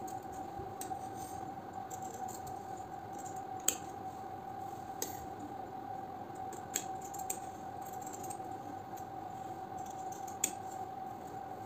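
Fabric scissors cutting through suit cloth to trim the neckline beyond the stitching, with a few sharp clicks of the blades. A steady faint hum runs underneath.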